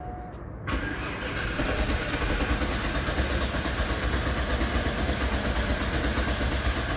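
A GMC's engine starts sounding abruptly about a second in and then runs on steadily, a dense low mechanical rumble that grows slightly louder.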